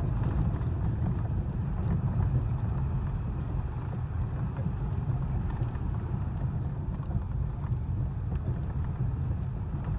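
Steady low rumble of a car driving slowly over a rough cobbled street, with engine and tyre noise heard from inside the cabin.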